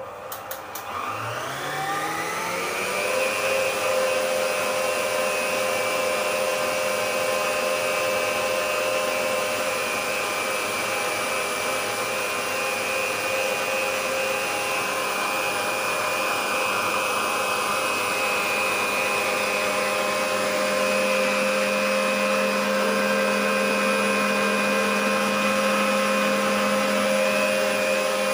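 Emsan stand mixer's motor spinning up to high speed over the first few seconds with a rising whine, then running at a steady high pitch as its whisk beats egg whites with sugar toward stiff peaks.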